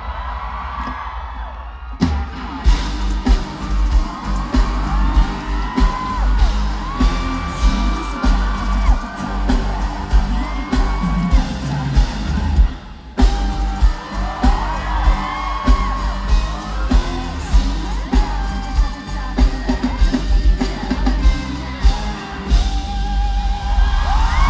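Live pop song played loud over a stage sound system, with a heavy bass beat and sung vocals, and fans whooping and yelling. The full beat comes in about two seconds in, and there is a short break near the middle.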